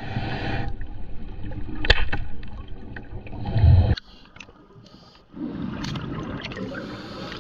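Scuba diver's regulator breathing underwater heard through the camera housing: a long gurgling rush of exhaled bubbles, a quieter inhale for about a second after the midpoint, then another long rush of bubbles. A single sharp click sounds about two seconds in.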